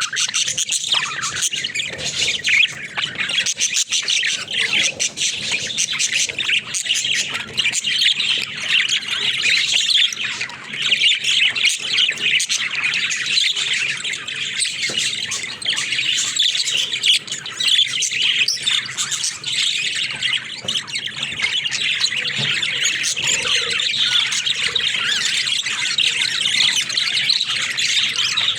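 Pet budgerigars calling without a break, a dense stream of high chirps and warbles.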